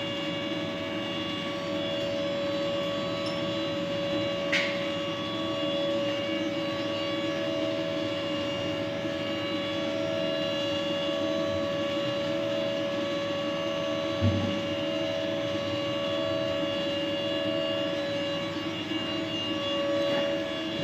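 CNC lathe running through a final finish-turning pass on a PTO clutch shaft: a steady machine whine made of several held tones, one of them pulsing about once a second. There is a brief sharp sound about four seconds in and a dull knock about fourteen seconds in.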